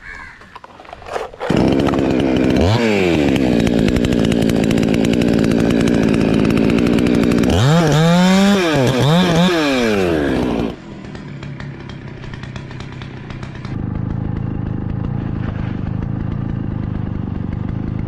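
Chainsaw revving up about a second and a half in and running at full throttle as it cuts through a coconut palm trunk. Near the middle the revs dip and surge a few times, then drop suddenly to a quieter, steady running for the rest.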